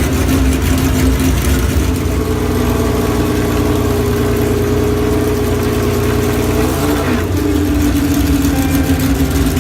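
Car engine running at steady revs with a deep rumble. About seven seconds in, the pitch dips briefly and then steps back up.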